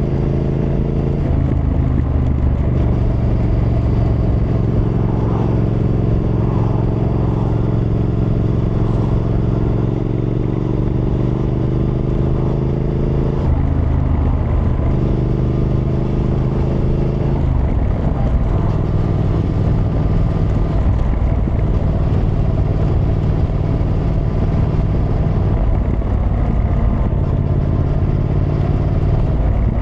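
Triumph Thruxton R's 1200 cc parallel-twin engine running under way, the revs creeping up slowly and changing with gear shifts about a second in, around 14 seconds and around 18 seconds.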